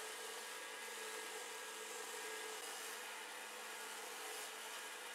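Small electric power tool running steadily, a constant motor hum under an even hiss.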